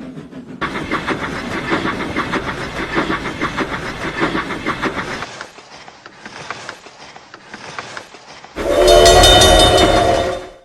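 Steam locomotive chuffing in a quick, even rhythm, softer after about five seconds. A loud steam whistle with several tones sounds for about two seconds near the end.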